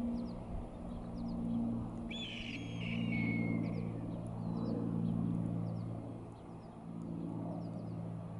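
A steady low hum, with a few even pitched lines in it, lasts the whole time. About two seconds in, a bird gives one descending call lasting about a second and a half, and faint short chirps of small birds come and go.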